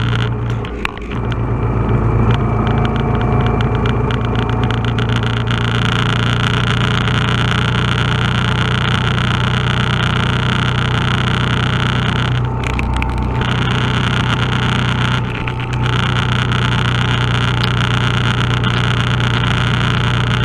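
Cruiser motorcycle engine running steadily under way, with road and wind noise on the mount. The engine sound dips briefly about a second in and twice more past the middle.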